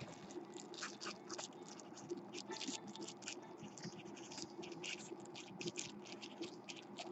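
Marker pen scratching out a name on a paper label stuck to a padded mailer: many short, faint strokes, with a rustle of the envelope being handled near the start.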